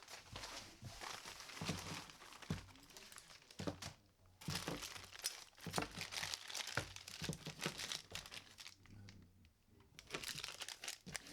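Quiet, irregular crinkling and crackling of packaging being handled and torn open as new drawer-pull hardware is unwrapped, with a few short pauses.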